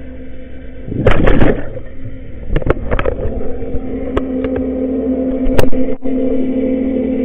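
Underwater recording: a steady low motor hum, with a loud rush of scuba exhaust bubbles about a second in and several sharp knocks after it.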